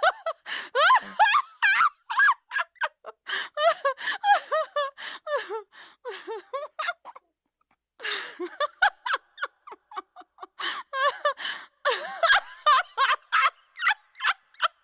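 High-pitched, cartoonish giggling laughter sound effect in quick repeated bursts of voice, broken by a short silence about seven seconds in before a second laughing clip starts.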